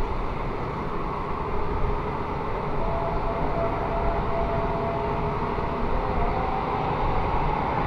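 Twin-engine jet airliner on final approach: a steady rumble of its engines that grows slightly louder, with a faint whine coming in about three seconds in.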